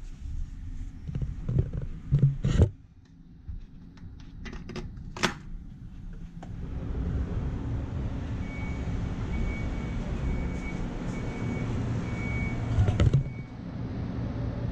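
Clicks and knocks as the cabin's balcony door is handled and opened, with one loud thump. About six seconds in, a steady outdoor rumble and hiss sets in, and a faint high beep repeats about twice a second.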